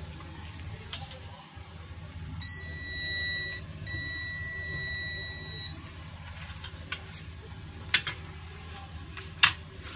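Digital multimeter's continuity beeper sounding twice as its probes touch points on a laptop motherboard: a steady high beep of about a second, then a longer one of nearly two seconds. A few sharp clicks follow near the end, over a steady low hum.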